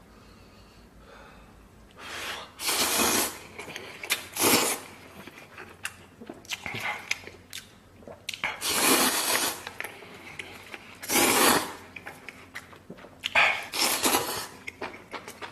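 A man slurping instant noodles in big mouthfuls: about five long, loud slurps starting about two seconds in, with shorter ones between.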